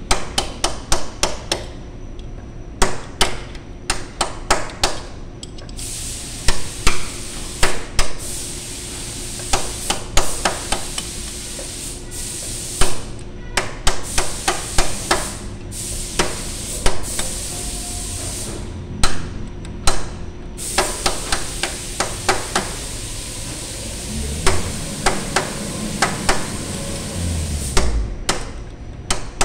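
Hammer striking a steel punch held against a forklift wheel hub, in quick runs of sharp metallic blows with short pauses between runs, as the hub's bearing lock nut is worked round.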